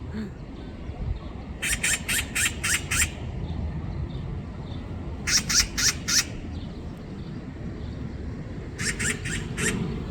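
A magpie's harsh, rattling chatter in three quick bursts of several notes each: about two seconds in, around the middle, and near the end. It is the scolding call a magpie uses when mobbing a cat.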